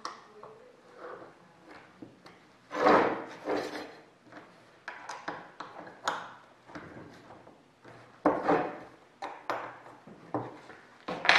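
Steel tubing and wooden blocks being handled on a workbench: a string of separate knocks, clinks and short rubbing scrapes as the blocks are fitted onto the tube.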